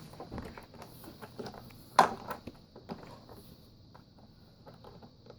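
Handling noise from a plastic Dirt Devil Power Express upright vacuum: scattered light clicks, knocks and rustles, with one sharp plastic click about two seconds in.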